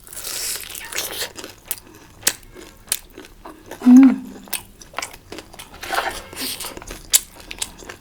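Close-miked eating: biting and chewing with crunchy, wet mouth clicks. A short low vocal sound, falling in pitch, is the loudest moment about four seconds in.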